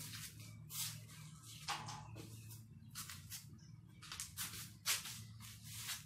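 Irregular rustling and scuffing, a string of short hissing rustles, as a young bird is handled in cupped hands and the phone is moved close to it. A faint steady low hum runs underneath.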